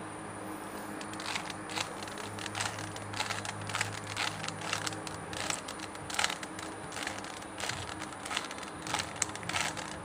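Rubik's cube layers being turned by hand in quick succession: an irregular run of plastic clicks and rattles as the move sequence that solves the last two corners is carried out.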